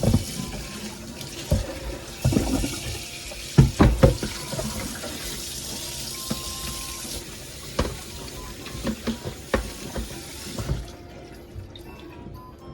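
Tap water running into a sink with a steady hiss, with a few knocks and clatters of things being handled under it; the tap shuts off about eleven seconds in.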